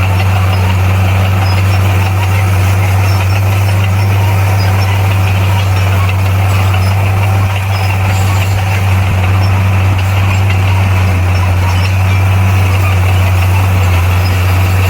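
Bulldozer's diesel engine running steadily with a deep, unchanging drone.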